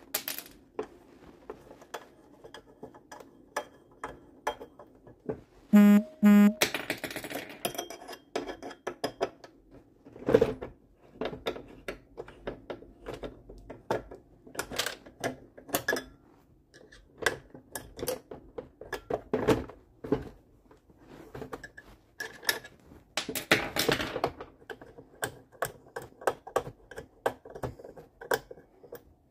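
Hands and a screwdriver working on a computer monitor's mounting screws and plastic casing, with many scattered clicks and knocks. A short, loud squeak comes about six seconds in.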